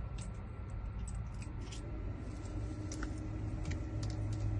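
Faint light clicks and taps of small metal lock parts being handled as a lock is taken apart from the back, over a steady low hum that gains a low steady tone about halfway through.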